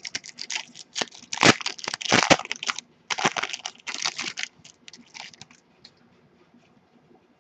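Foil wrapper of a 2013 Topps Strata football card pack being torn open and crinkled by hand, in a run of crackling bursts that die away after about five seconds.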